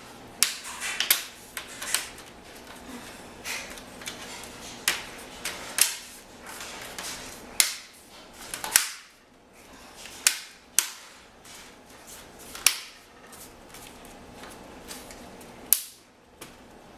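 Plastic front bezel of a Toshiba Satellite laptop screen being pressed back on, its clips snapping into place: a dozen or so sharp snaps at irregular intervals.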